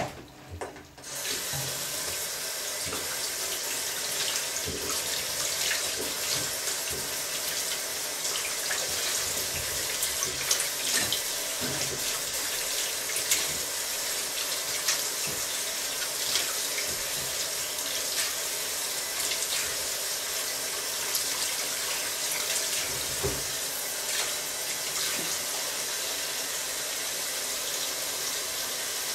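Kitchen tap running steadily into a sink as vegetables are rinsed under it, with scattered light knocks of handling. The water starts about a second in.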